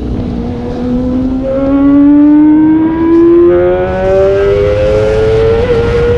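Kawasaki ZX25R's 250 cc inline-four engine under acceleration, its note rising steadily in pitch, with a brief dip near the end.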